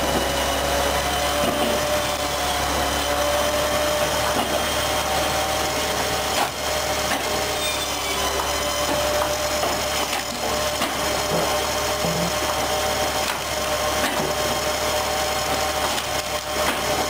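A band-saw firewood machine runs steadily with a high whine, its blade sawing through wood. A few sharp knocks of wood are heard now and then.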